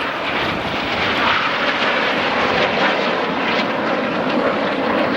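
Jet engine noise of BAE Hawk T1 display jets flying past, a steady rushing sound that holds at a constant level.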